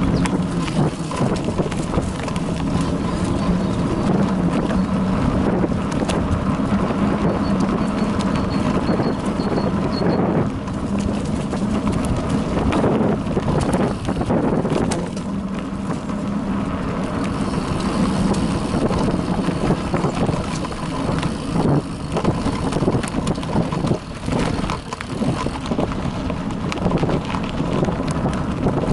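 Bicycle rattling and clattering over a bumpy dirt trail, picked up by an action camera mounted on the bike: a steady run of knocks with tyre noise underneath.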